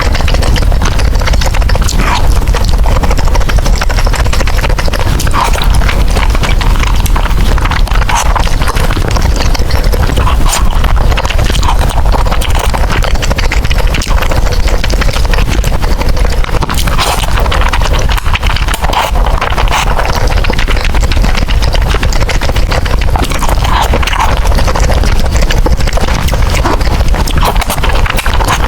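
Loud, close-miked eating sounds: chewing and slurping noodles, with continuous wet clicks and smacks.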